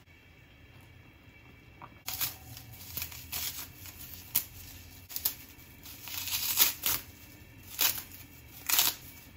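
Brittle sheets of dried purple laver (zicai seaweed) being torn into small pieces by hand, a series of irregular dry crackling, crinkling tears that start about two seconds in.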